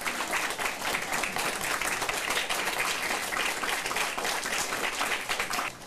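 Audience applauding steadily with dense clapping, which dies away near the end.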